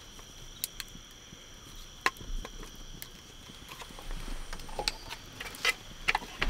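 Steady high-pitched trilling of night insects, with scattered sharp clicks and knocks that come more often in the second half.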